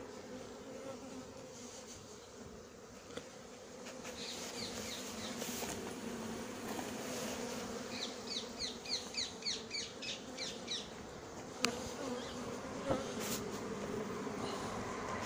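Honeybees buzzing in a steady low hum. A little past the middle, a quick run of about a dozen short high chirps, then two sharp clicks near the end.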